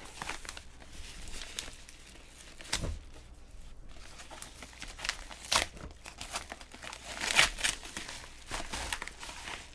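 Paper envelope being handled and torn open: irregular crinkling and rustling, loudest about five and a half and seven and a half seconds in.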